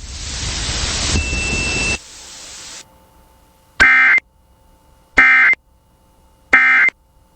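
Emergency Alert System end-of-message signal: three short bursts of screeching digital data tones, about a second and a half apart, marking the close of the alert. Before them, a loud hiss cuts off about two seconds in and dies away.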